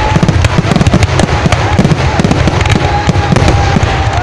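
Fireworks barrage: a dense, rapid, unbroken string of loud bangs and crackles, many blasts a second, with a faint whistle-like tone running through it.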